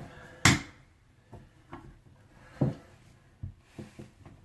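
Faucet valve being pushed and worked into the faucet body, making a series of separate knocks and clunks, the loudest about half a second in and another near the middle; the valve is binding and won't seat.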